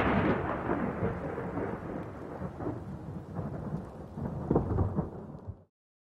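Thunder sound effect: a rolling rumble that fades away, swells again twice near the end, then cuts off suddenly.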